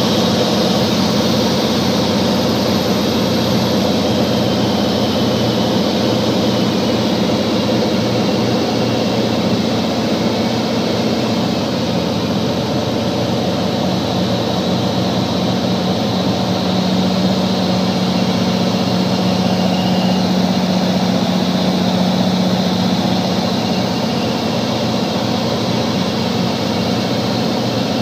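Cabin drone of a Cirrus SR22's six-cylinder piston engine and propeller in flight, throttled back to about 1,800 rpm and under a third of rated power. It is a steady hum whose low tone swells a little about two-thirds of the way through.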